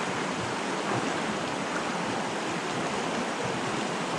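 Stream flowing: a steady, even rush of water.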